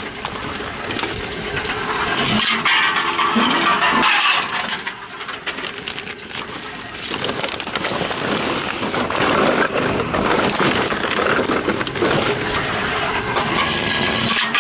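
Tomra 42 reverse vending machine for cans running, its can crusher working with a growl and clattering of aluminium cans. It eases off a little about five seconds in and picks up again about two seconds later.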